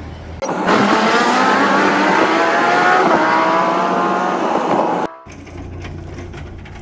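Race car engine revving up hard, its pitch climbing, dropping once at a gear change about three seconds in and climbing again. The sound starts and cuts off abruptly.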